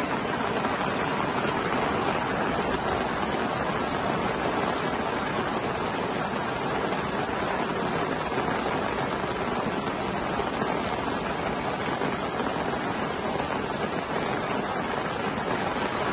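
Gale-force wind and heavy rain: a steady, even rush with no separate sounds standing out.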